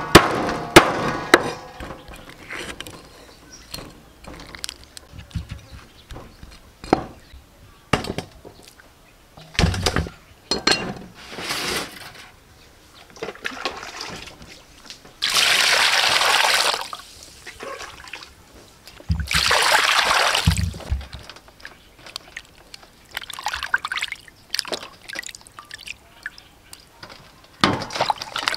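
A few sharp knife knocks on a wooden chopping block as a fish is cut. Then water is poured twice, each time a second or two of splashing, about halfway through and again a few seconds later. Near the end come small splashes and sloshing as the fish is rubbed clean by hand in a bowl of water.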